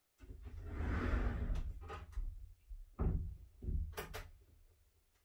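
Someone rummaging for an object: a rustling handling noise for the first couple of seconds, then a series of knocks and clatters like a cupboard or drawer being opened and things moved about.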